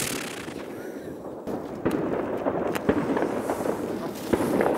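Ground fireworks in the snow: a fountain's hiss cuts off at the start, and then, about two seconds in, a run of scattered sharp cracks and crackling begins.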